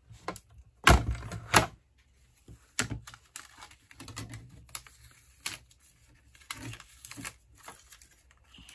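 Clear acrylic cutting plates and a metal die clacking and clicking as they are pulled from a hand-crank die-cutting machine and taken apart. Two sharp clacks come about a second in, followed by scattered lighter taps and clicks.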